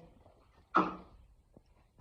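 A single short vocal sound from a person, one brief syllable about a second in, with a few faint light taps around it.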